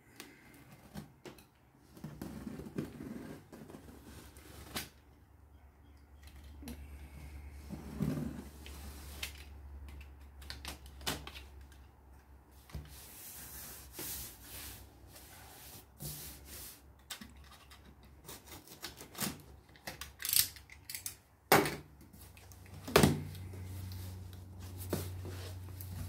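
Box cutter scraping and slicing along the packing tape of a cardboard box, with irregular clicks and rustles of cardboard. Near the end come sharp cardboard snaps as the box flaps are pulled open.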